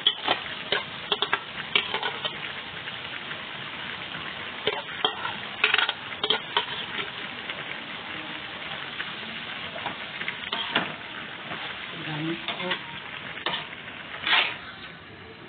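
Ground beef, sliced chicken hot dogs and mushrooms sizzling steadily in a wok, while a utensil stirs them and scrapes and knocks against the pan in scattered sharp clicks.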